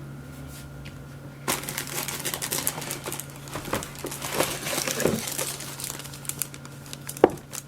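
Packaging crinkling and rustling as it is handled and unwrapped, starting about one and a half seconds in and going on irregularly, with a sharp click near the end.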